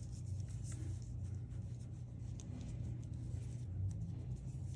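Faint, light scratching and rubbing of small hand work on the watch, over a steady low hum.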